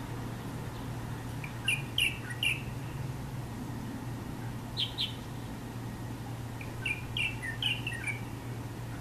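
Chinese bulbul (light-vented bulbul) singing: a short phrase of quick chirpy notes about two seconds in, a brief double note about five seconds in, and another phrase of quick notes near the end.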